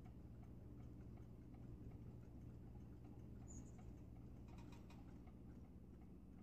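Near silence: faint room tone with a low steady hum and faint, evenly repeating ticking, plus one brief high chirp about three and a half seconds in.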